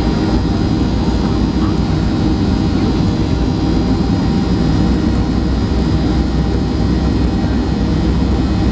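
Boeing 737-800 cabin noise by the wing: the CFM56-7B turbofan engines run steadily, a deep even rumble with a few faint steady high tones on top, as the airliner rolls along the runway.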